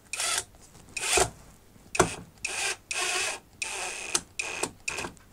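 Metabo SSD 18 LT 200 BL cordless brushless impact driver run in a string of short trigger bursts, about nine in five seconds, each with a high motor whine. It is on a low setting, feathering a small Phillips screw into wood to stop it where wanted.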